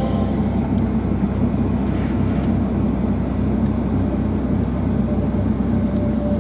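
Steady cabin noise inside a Boeing 757-200 before takeoff: a constant low drone and hum from the aircraft's engines and air systems. A faint steady tone joins it about five seconds in.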